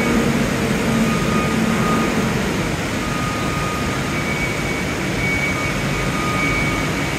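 Cat 2C5000 LPG cushion forklift running, with its engine and hydraulics working the raised mast: a steady, loud drone. A faint whine in it eases off about two and a half seconds in.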